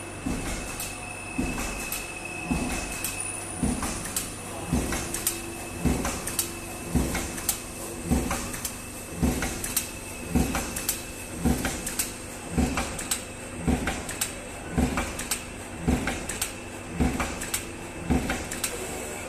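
Automatic PVC sheet hot stamping machine running, its stamping head coming down on the card sheet with a sharp clack about once a second in a steady rhythm. A steady hum and a high whine from the machine run underneath.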